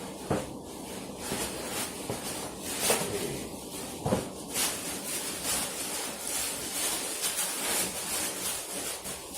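Tissue paper and packaging rustling and crinkling as a parcel is unpacked, with a few sharper handling bumps.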